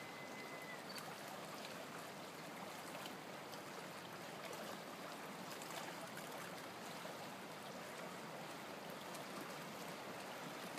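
Faint, steady wash of flowing river water.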